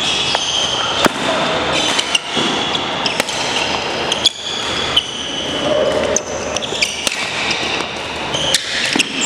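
Badminton rally: rackets striking the shuttlecock with sharp clicks about once a second, and sneakers squeaking on the wooden court floor, echoing in a large gym.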